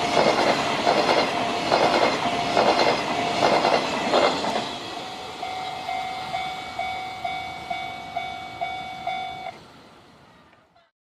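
Freight wagons' wheels clattering over rail joints, a quick double click about every 0.8 seconds, loud for the first four seconds and then fading as the last flatcars pass. Under and after it a level crossing alarm rings in even pulses, about two a second, and stops near the end.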